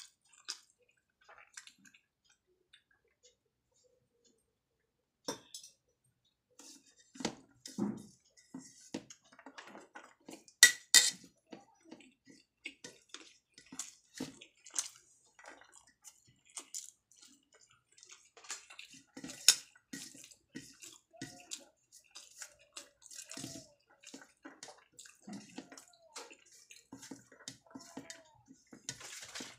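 Close-up eating sounds: wet chewing and lip smacks of rice and potato curry, with fingers squishing and mixing rice on a stainless steel plate. Irregular short clicks throughout, the loudest about 11 and 19 seconds in.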